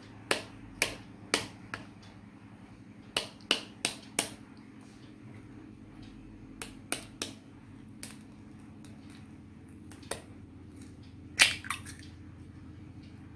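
An egg's shell tapped again and again with a knife blade to crack it: sharp clicks in irregular groups of two to four, then a louder cluster of cracks near the end as the shell breaks open over a steel bowl.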